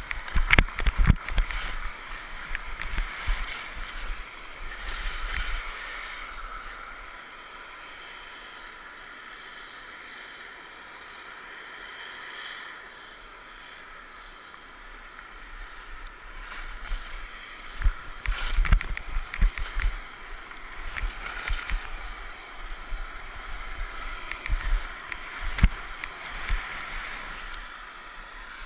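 Skis hissing and scraping over packed snow, heard through a helmet-mounted GoPro. Sharp scrapes and knocks come thick at the start and again through the last third, with a smoother, quieter glide in between.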